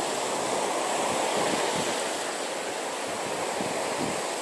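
Sea waves washing onto a beach: a continuous wash of surf that eases a little past the middle.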